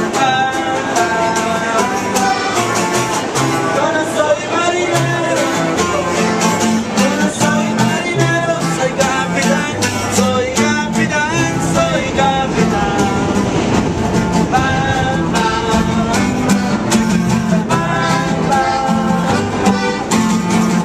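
A live Mexican street band playing: strummed many-stringed acoustic guitars keep a steady rhythm and bass line while a voice sings the melody over them.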